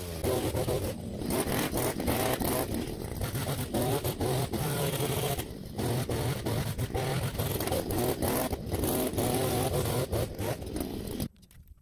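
The 43cc engine of a Hillstone pole hedge-trimmer multi-tool idling unevenly with the throttle released, then switched off and cutting out suddenly about eleven seconds in.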